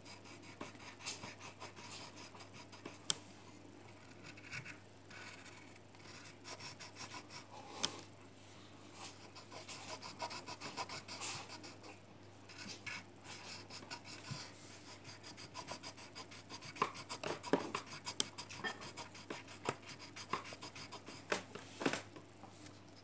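Pencil scratching on paper in quick, rapid back-and-forth strokes as a drawing is shaded in, with a couple of sharp clicks in the first third.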